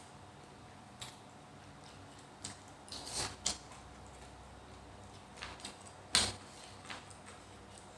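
Eating noodle soup: scattered small clicks and clinks of utensils against a bowl, along with mouth sounds, loudest about six seconds in.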